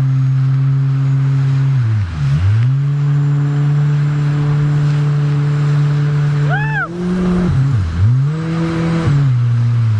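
Jet ski engine running steadily at high revs over a wash of wind and spray. The revs drop sharply and climb back twice, about two seconds in and near eight seconds, as the throttle is let off and opened again.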